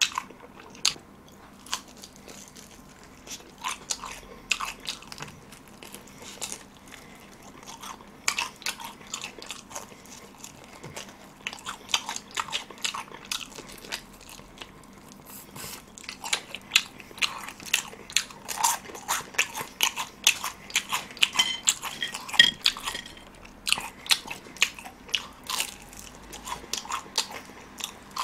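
Close-miked biting and chewing of crispy, curry-seasoned fried chicken: irregular crunches of the batter crackling between the teeth, with wet mouth sounds, coming thickest in the second half.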